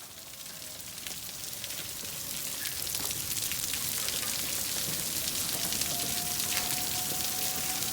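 Steady rain falling, a dense patter of raindrops that grows gradually louder over the first few seconds. A faint thin whistle joins in the second half.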